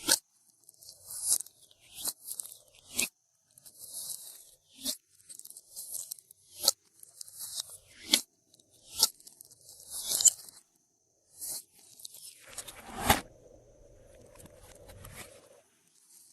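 Glossy slime being squished, pressed and stretched by hand, giving a string of sharp clicks and crackly pops roughly once a second.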